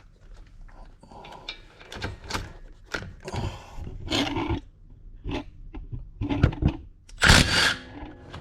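Wrench and metal tool clanks and scraping on a front brake caliper as its 14 mm caliper bolt is worked loose. Irregular knocks and short scrapes, with a louder scraping burst about seven seconds in.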